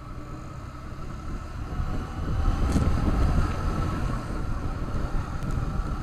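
Motorcycle riding in town traffic: the engine running with wind rushing over the microphone, growing louder about two seconds in.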